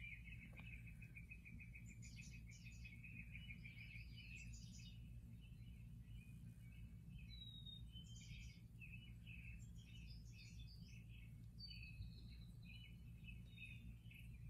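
Faint birdsong from a cat-TV bird video playing through a device speaker: a steady high trill with bunches of chirps and a few short falling whistles over it, and a low steady hum underneath.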